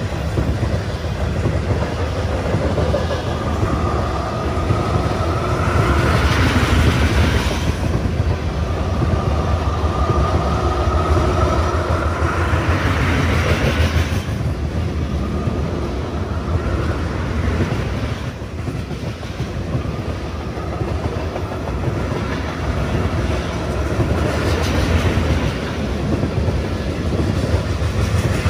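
Loaded ethanol tank cars of a freight train rolling past, wheels clicking over the rails with a steady rumble. A rising whine swells and breaks off twice, and once more faintly later.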